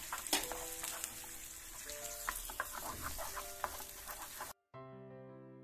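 Butter sizzling as it melts into hot caramelized sugar in a frying pan, stirred quickly with a wooden spatula that clicks and scrapes against the pan. Faint background music runs underneath; about four and a half seconds in the sizzling cuts off and soft piano music continues alone.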